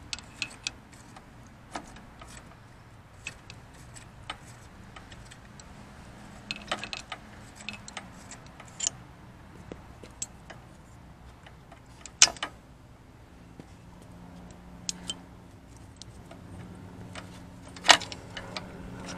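Scattered light metallic clicks and clinks of hand tools, a socket ratchet and vise-grip locking pliers, as a fitting on the A/C condenser's refrigerant line is loosened and parts are set down, with two sharper clinks about twelve and eighteen seconds in. A faint low hum sets in during the second half.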